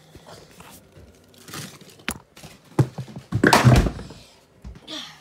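A few sharp knocks and thuds, then a louder, rougher thump with rustling about three and a half seconds in.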